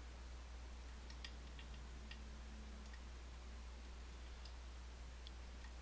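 Faint, irregular small metallic clicks and ticks of a lock pick probing and setting the sliders inside an M&C Move lock held under tension, over a low steady hum.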